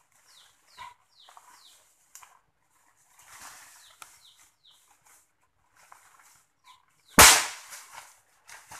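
A single rifle shot about seven seconds in, sharp and loud with a short echoing tail. Before it, a bird's short falling chirps repeat several times.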